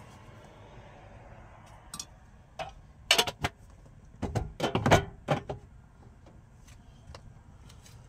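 Clatter of things being handled: a quick run of sharp clicks and knocks, densest between about two and five and a half seconds in.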